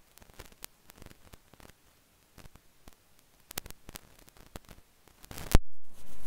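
Crackling static on an online-call audio line: scattered sharp clicks and crackles, then about five seconds in a loud burst of noise, a brief dropout to silence, and a steady hiss.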